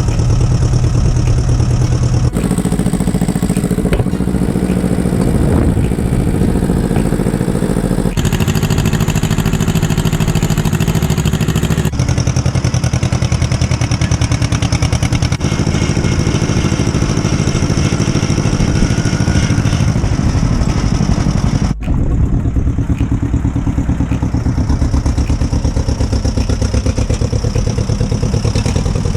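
1953 John Deere 40 tractor's two-cylinder engine running steadily after being started on the choke, with a clattery firing beat. Its tone changes abruptly a few times.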